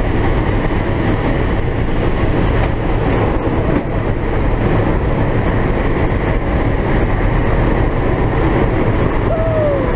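Loud, steady engine and airflow noise inside the cargo cabin of a turboprop military transport aircraft in flight, a constant low drone.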